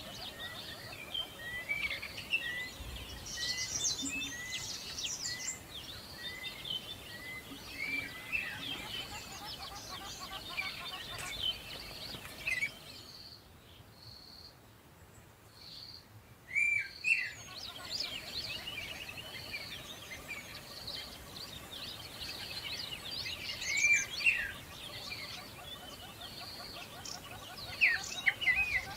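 Several birds chirping and singing, a busy mix of short tweets, with one bird repeating a short note steadily through the first several seconds. The chorus thins out for a few seconds about halfway through, then picks up again.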